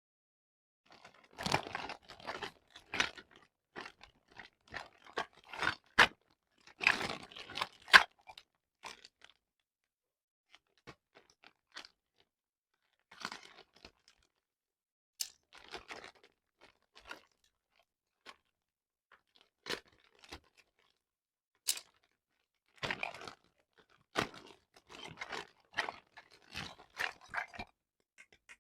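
Crunching and crinkling as fresh produce and its packaging are handled: irregular clusters of short bursts with a few sharp clicks, broken by pauses of several seconds.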